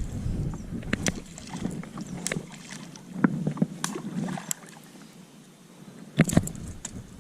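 Scattered light knocks and clicks of gear being handled in a plastic fishing kayak, with a few duller thuds about three seconds in and again near six seconds. Low wind rumble on the microphone fades out in the first second or two.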